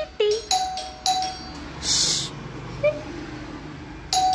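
Electronic doorbell chiming again and again as its switch is pressed repeatedly, short ringing dings in quick succession. There are three in the first second and a half, a pause with a brief hiss, then another near the end.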